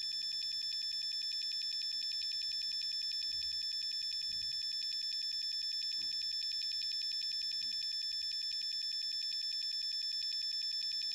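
Walkera Devo F12E transmitter's buzzer giving a shrill, high-pitched beep that repeats very rapidly without a break while a button is held down to step a menu value.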